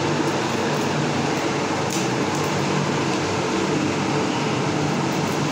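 Steady mechanical hum with a constant rushing noise, unchanging throughout.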